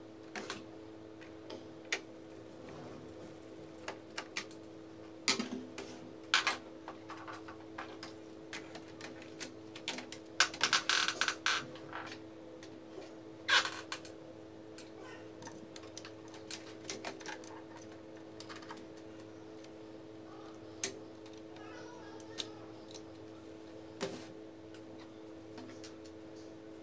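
Scattered clicks, taps and clatter of a steel screwdriver against the metal chassis and plastic parts of a laser printer being taken apart. A dense run of rattling comes about ten seconds in, followed by a sharp knock. A steady low hum runs underneath.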